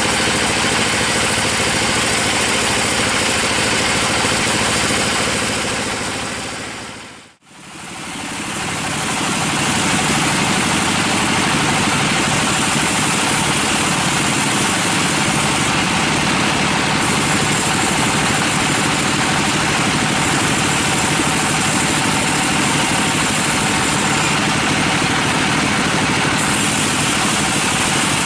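Log bandsaw mill running steadily and sawing lengthwise through a teak log. The sound fades out briefly about seven seconds in and fades back in.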